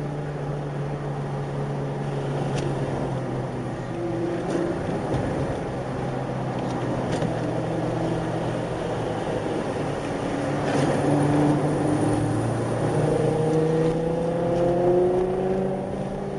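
Car engines and tyre-and-road noise heard from inside a car following a Nissan GT-R down a mountain road. The engine note holds steady at first, then climbs in pitch and grows louder from about ten seconds in as the cars accelerate, easing off near the end.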